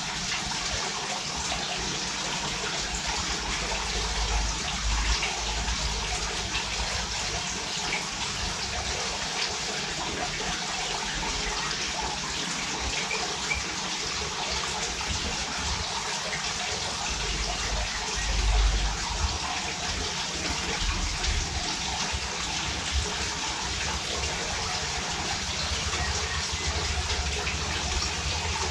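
Steady rushing noise like running water, with a low rumble swelling up a few times.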